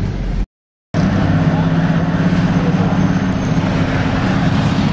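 A vehicle's engine and road noise as it drives, a steady low hum. The sound cuts out completely for about half a second near the start.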